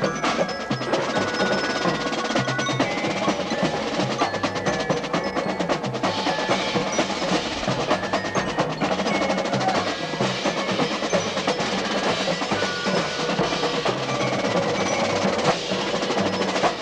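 Drum and bugle corps percussion section playing: dense, fast snare drum strokes with mallet percussion ringing pitched notes over them, ending right at the close.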